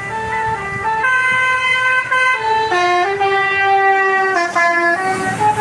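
Bus telolet horn, a multi-tone musical air horn, playing a tune of stepped notes sounded two or three at a time, with one long held chord in the middle.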